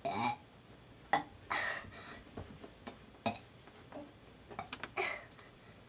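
A child forcing out attempted burps: three short, breathy throat sounds, with a few sharp clicks in between.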